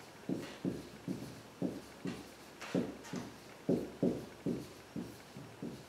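Marker writing on a whiteboard: a quick string of short strokes, about two or three a second, as a word is written out letter by letter.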